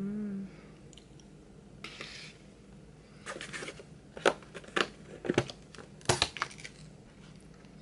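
A short hummed 'mm', then crinkling plastic food packaging being handled and opened, with a run of sharp snaps and crackles over a few seconds.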